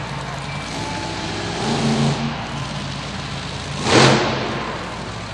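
Monster truck engine running and revving, with a surge about two seconds in and a louder burst of revs about four seconds in.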